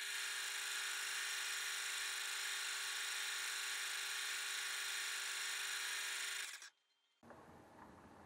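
Multitech 800 Plus lathe running with a boring head cutting the cylinder seat of a scooter crankcase, played back sped up: a steady, high-pitched machine whine with hiss. It cuts off suddenly about six and a half seconds in, leaving faint ticks.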